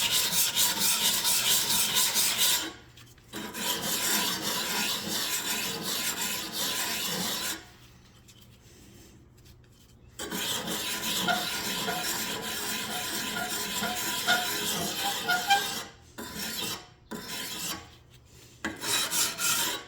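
Steel lawnmower blade being hand-filed with the fine side of a file, flat across the back of the blade to take off the burr. The file strokes come in long scraping runs, with pauses near 3 s, around 8 to 10 s, and a few short breaks near the end.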